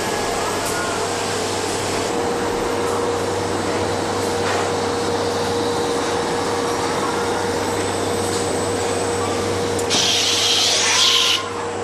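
KUKA KR 180 PA palletizing robot and its cell running, a steady machine hum and noise with faint rising-and-falling whines as the arm moves. Near the end comes a loud hiss, about a second and a half long, that cuts off suddenly.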